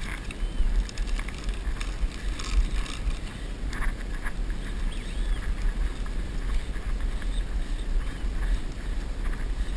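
Strong wind buffeting the microphone: a steady, uneven low rumble, with a few faint high chirps and light ticks over it.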